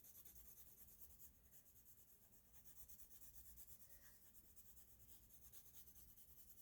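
Faint scratching of drawing strokes on sketch paper, barely above near silence.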